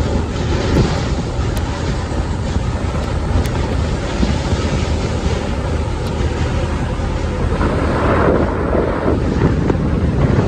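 Road traffic with trucks going by: a steady low rumble of engines and tyres, with a louder pass about eight seconds in. Wind buffets the microphone.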